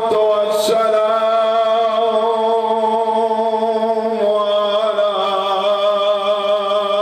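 A man's voice chanting in long, held sung notes, the pitch stepping to a new note about four seconds in.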